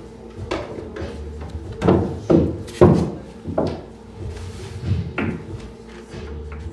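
Pool balls clacking and knocking: a ball dropping into a corner pocket, then balls knocking together as they are handled at the pocket, in a string of about six sharp knocks, the loudest a few seconds in.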